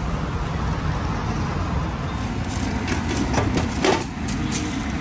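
Steady low rumble of road traffic, with a cluster of short clicks and knocks about three to four seconds in.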